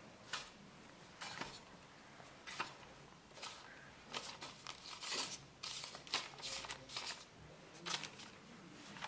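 Faint, short paper rustles and soft taps, a dozen or so scattered through, as proofed steamed-bun dough balls are set down and nudged into place on a perforated parchment liner in a stainless steel steamer tray.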